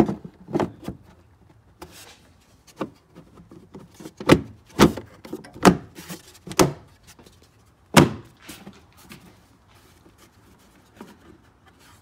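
Plastic dash trim panel being pressed and knocked back into place, a handful of sharp plastic knocks and clicks as its tabs are pushed into their holes, over the first eight seconds or so.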